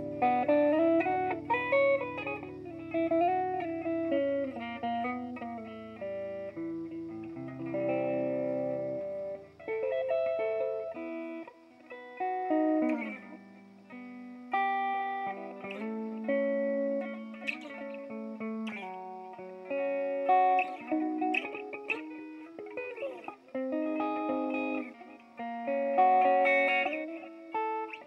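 Electric guitar played through a BOSS DD-8 Digital Delay pedal set to Reverse mode: a melodic line of single notes with backwards-played echoes. A low held note sounds underneath until about eleven seconds in, then drops out.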